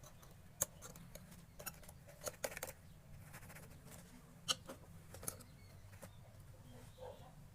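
A few faint, scattered light clicks and taps, about half a dozen, over a faint low hum.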